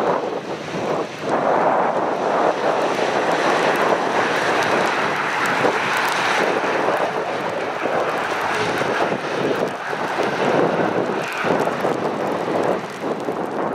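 British Airways Boeing 787 jet engines during the landing roll on a flooded runway: a steady rushing roar mixed with water spray from the wheels, rising and falling slightly, with wind buffeting the microphone.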